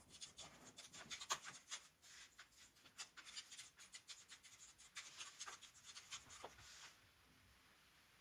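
Faint typing on a Keychron K3 low-profile keyboard: rapid, irregular key clicks that stop about seven seconds in.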